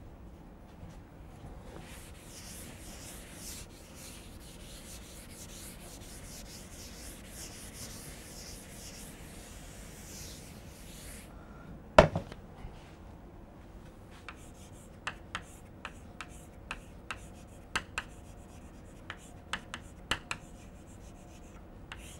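Faint scratchy rubbing for about nine seconds, then one sharp knock, then a string of quick chalk clicks and taps on a blackboard as writing begins.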